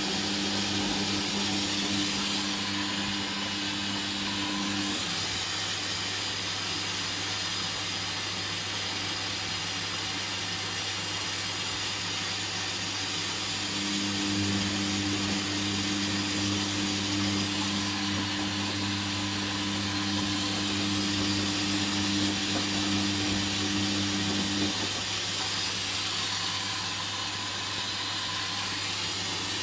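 Hoover Dynamic washing machine in its first rinse: the drum motor hums while turning the drum, stops about five seconds in, starts again midway and stops again near the end. A steady low hum and hiss run underneath.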